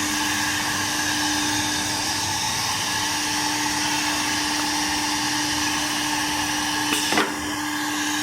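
CNC horizontal side drilling machine running with a steady high-speed whine over a hiss, with a brief knock about seven seconds in.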